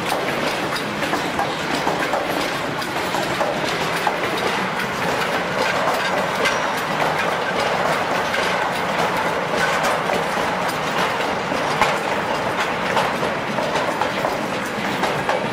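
Freight train of double-deck car-transporter wagons rolling past close by: a steady, loud noise of wheels on rails, with dense clicking as the wheels cross the rail joints.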